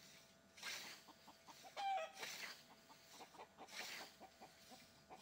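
Faint hen clucking, with one short pitched call about two seconds in.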